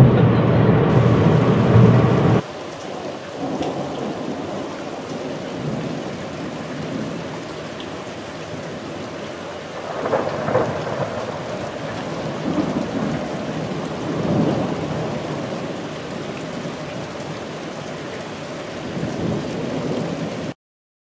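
Rain falling steadily with thunder rumbling in several swells, the strongest about ten seconds in. It is preceded by a louder stretch of other noise that cuts off about two seconds in, and the rain stops abruptly just before the end.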